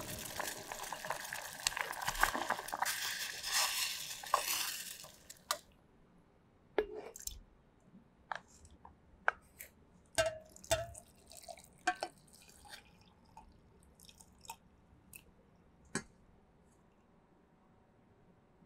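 Sprite syrup bubbling at a boil in a stainless steel saucepan for about the first five seconds, a hiss full of small pops and clicks. After that come scattered drips, light clinks and splashes of the hot liquid going into a glass jar, loudest just after ten seconds.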